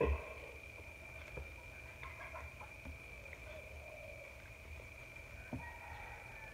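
Hands handling a sprig of fresh chum het leaves: a soft knock about at the start, then light rustling and a few small taps as the leaves are picked over.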